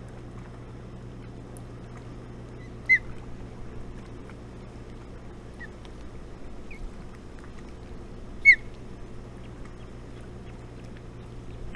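Osprey calls: two loud, short, downward-sliding chirps, about three seconds and eight and a half seconds in, with a few faint chirps between them, over a steady low background hum.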